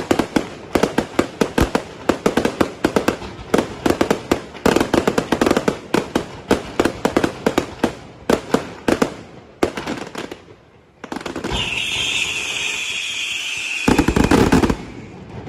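Fireworks going off in a dense run of sharp bangs and crackles, several a second. After a short lull comes a few seconds of steady hissing with a high whistling tone, cut off by a final loud blast near the end.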